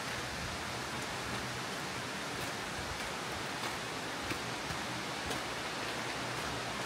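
Steady rush of running water from a stream or falls along the trail, with a few faint footstep ticks of the hiker walking.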